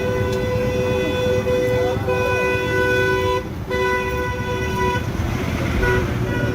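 Vehicle horn honking in long blasts with a couple of brief breaks, then two short toots near the end, over the low rumble of street traffic.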